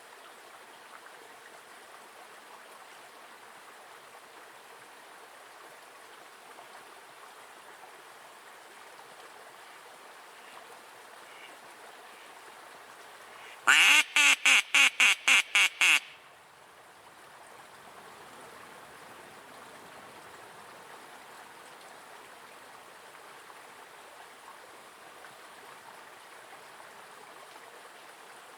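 Live decoy hen duck quacking: a quick run of about nine loud quacks over some two seconds, about halfway through. It is the hen's calling series, used to draw in a drake.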